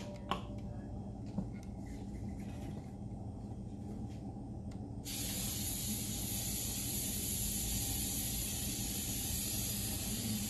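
Aerosol cooking-oil spray hissing steadily for about five seconds as it greases the inside of a metal bundt cake pan. The hiss starts abruptly about halfway through.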